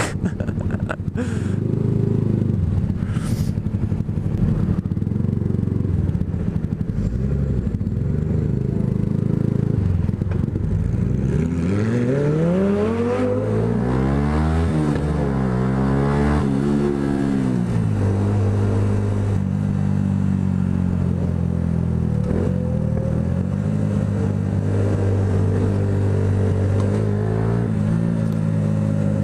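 Yamaha YZF-R125 motorcycle's single-cylinder engine heard from on board while riding through city traffic, running steadily with its revs climbing and falling through the gears between about 12 and 18 seconds in.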